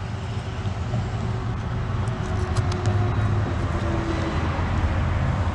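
Steady low rumble of road traffic, with a few faint light clicks in the middle.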